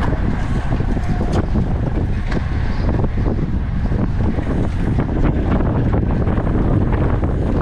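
Wind rushing over the camera's microphone on a road bike at racing speed, a steady rumble with scattered faint ticks.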